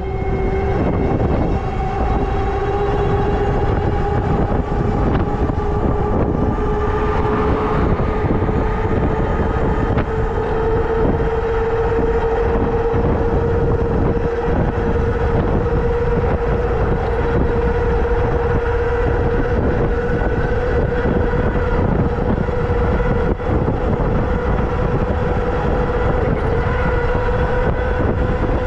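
Samebike M20 e-bike's hub motor whining under full throttle with its speed governor removed, the whine rising slowly in pitch as the bike accelerates, over heavy wind noise on the microphone.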